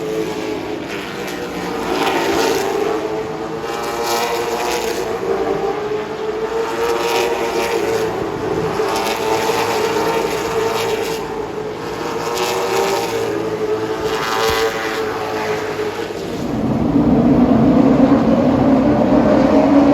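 Late model stock cars' V8 engines running laps on a short oval, their pitch swelling and fading in waves as cars go by. A louder, deeper engine sound comes in about three-quarters of the way through.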